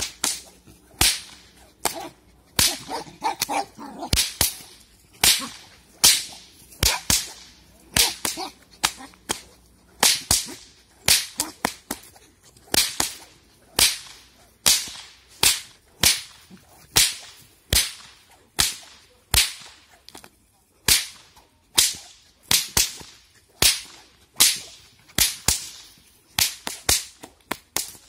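Bullwhip cracking over and over in a steady rhythm, about two sharp cracks a second.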